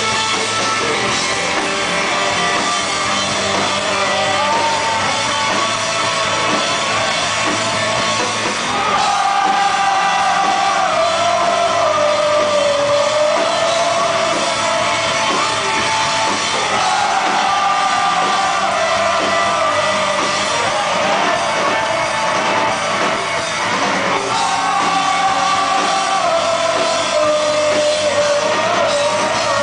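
Live rock band playing loud, electric guitar and drum kit, with the singer's voice carried in long bending lines over the band from about nine seconds in, breaking off briefly and coming back near the end.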